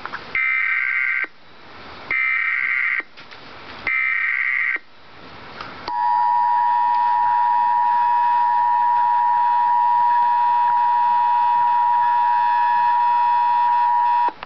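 Emergency Alert System tones for a tornado warning: three bursts of SAME header data tones, each about a second long, then the steady two-tone attention signal for about eight seconds.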